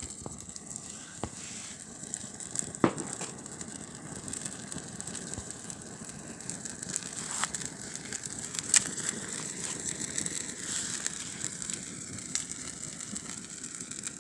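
Bananas flambéing in an electric pan, the alcohol burning over the hot fruit: a steady hiss with scattered sharp pops, the loudest about nine seconds in.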